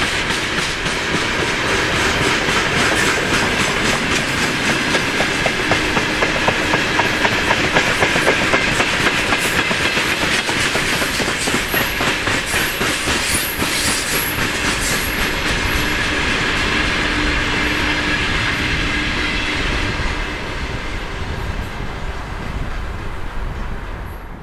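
Loaded freight train's wagons rolling past, the wheels clattering rhythmically over the rail joints. The sound dies away near the end as the last wagons pull off.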